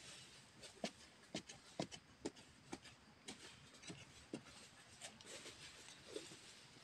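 Digging and scratching in dry, hard soil and crackly leaf litter: faint scraping with scattered sharp clicks and taps, about one or two a second.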